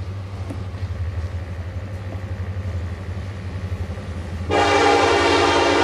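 Diesel freight locomotive's air horn sounding suddenly about four and a half seconds in, loud and held, over a low steady rumble.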